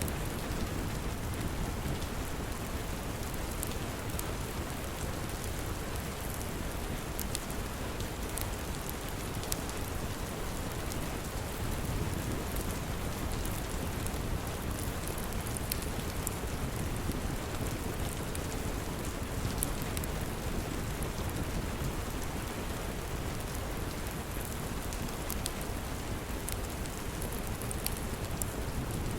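Steady rain, with scattered sharp crackles and pops from a wood fire.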